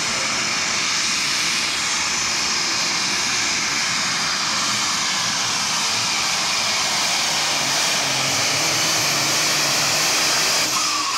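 Super Stock pulling tractor's turbocharged diesel engine running flat out under load during a pull, a loud steady howl with a high whine, building slightly toward the end.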